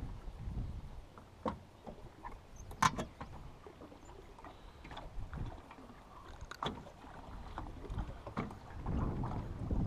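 Scattered clicks and knocks of gear being handled in an aluminum fishing boat, the sharpest about three seconds in, over a low rumble of wind and water against the hull that grows louder near the end.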